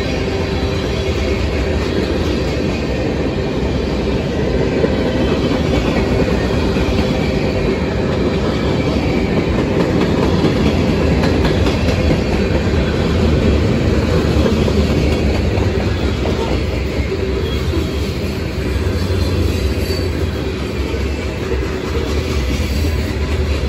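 Freight cars of a CSX manifest train rolling past at close range: a steady rumble of steel wheels on the rails, with clatter over the rail joints.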